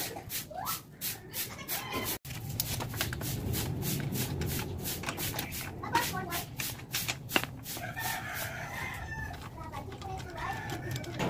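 A rooster crowing a few times, over a run of short metallic clicks as a scissor jack and lug wrench are worked on a car wheel.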